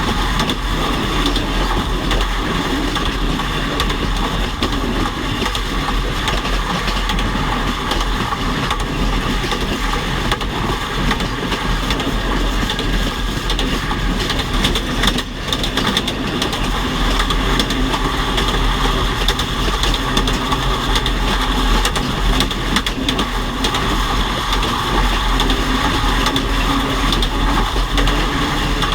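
Train running along the rails: a steady rumble and rolling noise of steel wheels on track, with a brief dip about halfway through.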